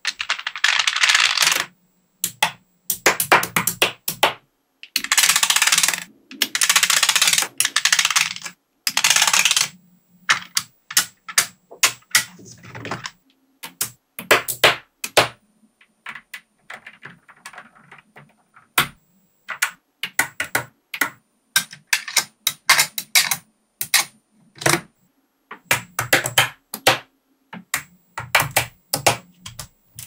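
Small steel magnetic balls clicking and clattering as they snap onto each other: dense rattling bursts of clicks in the first ten seconds, then a long run of sharp, separate clicks at irregular spacing.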